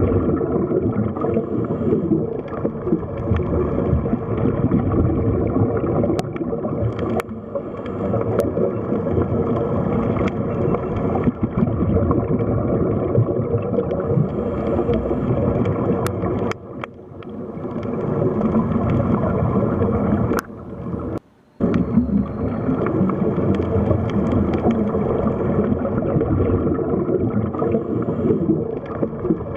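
Water sound effect, a steady run of gurgling, sloshing water mixed in the '8D' panned style, with a dip about halfway and a brief cut-out about three-quarters of the way through.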